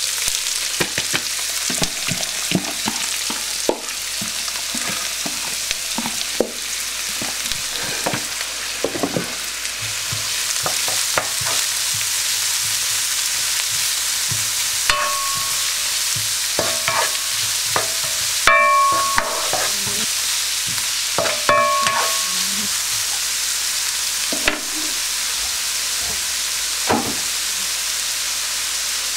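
Diced onions and garlic sizzling in hot fat in a wok as they are lightly browned, with a steady sizzle throughout. A slotted spoon stirs and scrapes them, the scraping strokes coming mostly in the first half, with a few short ringing clinks a little past halfway.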